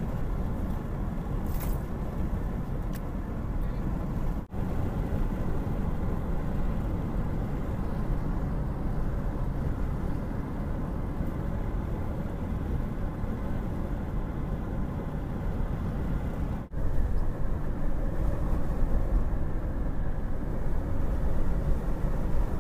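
Steady road and engine noise inside a moving car's cabin at highway speed. The sound cuts out briefly twice.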